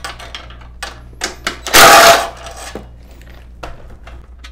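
Cordless impact driver with an 8 mm socket on an extension hammering for about half a second, near the middle, as it breaks loose a small engine bolt. Light clicks of the socket and tool being handled come before and after.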